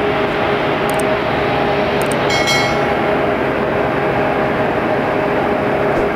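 Steady jet aircraft noise on an airport apron: a constant rushing drone with two steady humming tones running through it. A few short clicks and a brief high chime sound about two seconds in.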